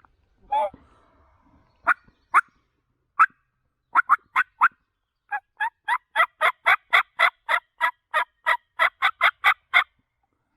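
Turkey yelps: a short rough call just after the start, a few single yelps, then a long run of loud yelps at about four a second.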